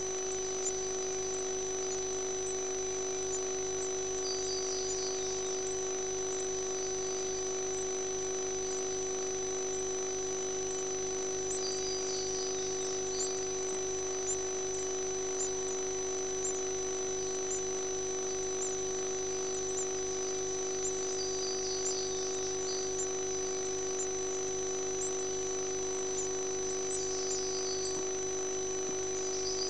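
Steady electrical hum and whine from a nest-box camera's recording, several fixed tones over a faint hiss. Faint high chirps come through briefly about four times.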